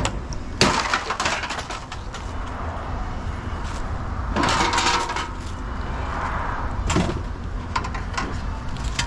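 Pieces of scrap metal being handled and dropped: a sharp clank about half a second in, then clattering and clinking, with a longer crash of metal about four and a half seconds in and another clank near seven seconds.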